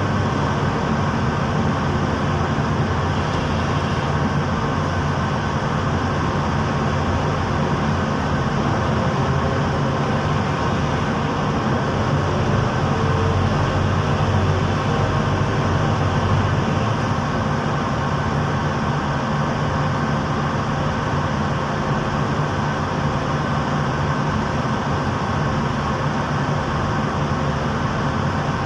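Heavy machinery engine of a pile-driving rig running steadily with a low, even drone while the hammer is being set on the pile; no hammer blows are heard.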